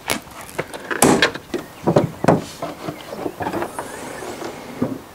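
A run of clunks and knocks from a Range Rover Sport L320 body as the driver's door is shut and the bonnet is released and lifted, the loudest about a second and two seconds in.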